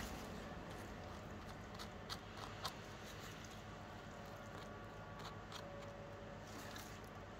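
A fillet knife cutting along a monkfish tail on a plastic cutting board: a few faint clicks and ticks of the blade over a steady low hum.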